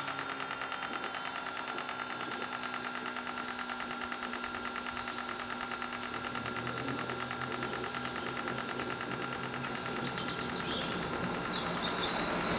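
Wren 75 KPro model jet turbine in its start sequence: a steady whine over a fast, even ticking, getting slightly louder toward the end.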